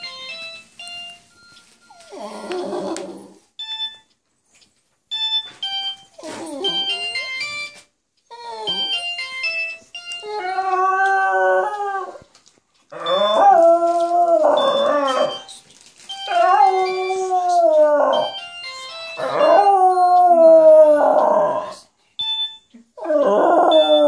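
A West Highland white terrier howling along to a mobile phone's beeping ringtone melody. From about ten seconds in the dog lets out a run of drawn-out howls, each a second or two long, which are louder than the ringtone.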